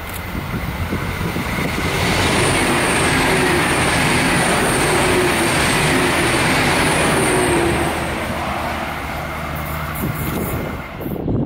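A train passing close by, its wheels rolling on the rails over a steady engine hum, loudest through the middle, with a thin high wheel squeal. The sound changes abruptly near the end.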